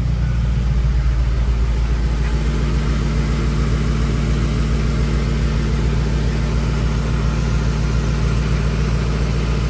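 Ford 5.4L 3-valve Triton V8 idling steadily. The tick is gone now that a loose spark plug has been reseated and torqued down.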